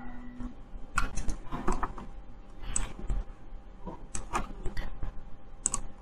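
About half a dozen light, sharp clicks and taps, irregularly spaced, over a faint steady low hum.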